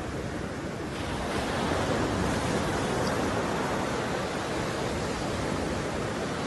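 Sea surf washing onto a sandy beach, a steady rush of noise that swells about a second in.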